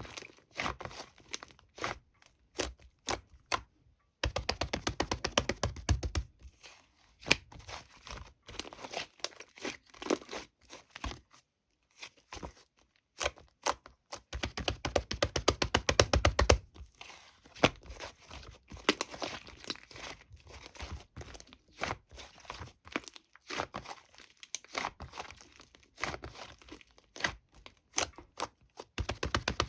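Thick, glossy slime being pressed and stretched by hand, giving off dense runs of tiny crackling pops and clicks in bursts of a second or two, with brief pauses between.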